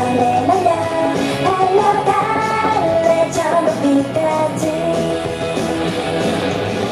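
K-pop song with a female singing voice, played loud over a stage sound system.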